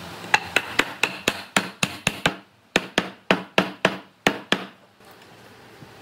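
Hammer blows on wood, driving a glued cross-lap joint between two timber beams home: two runs of rapid sharp strikes, about four a second, with a short pause at about two and a half seconds.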